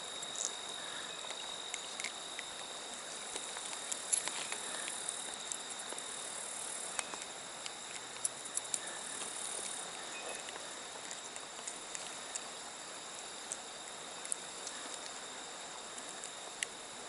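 Crickets trilling steadily and high over a faint even hiss, with scattered small clicks and taps.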